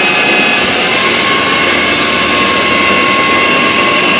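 Tormach 15L Slant-PRO CNC lathe turning a part under flood coolant: a steady, loud machine noise of spindle and spraying coolant with a high whine, joined about a second in by a second, lower whine.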